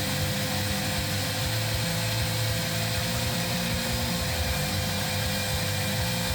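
Knifemaking belt grinder running with a fine 2500-grit belt while a blade's bevel is ground, a steady whine over the motor and belt noise.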